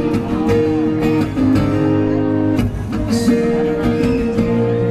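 Live band music led by acoustic guitar.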